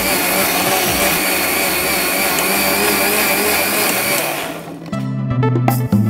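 Electric mixer grinder running steadily with a high whine as it blends pineapple pieces in its steel jar. It is switched off and runs down about four and a half seconds in, and background music follows.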